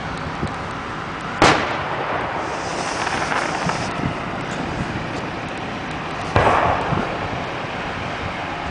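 Aerial fireworks shells bursting: two loud booms about five seconds apart, with a hissing crackle high up between them.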